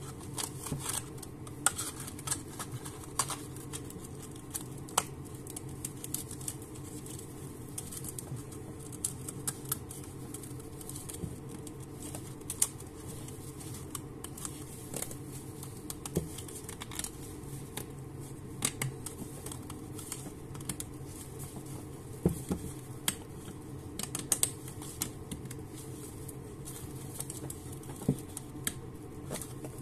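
Steel piston ring being worked by hand onto a 1.9 dCi diesel piston: irregular light metallic clicks and ticks as the ring and piston knock together, over a faint steady hum.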